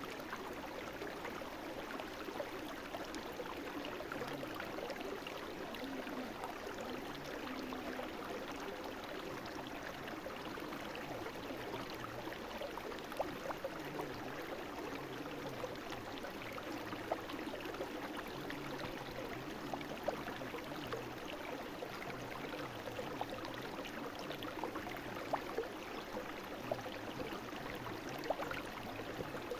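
Brook water running and babbling steadily over stones, with scattered small splashes and drips.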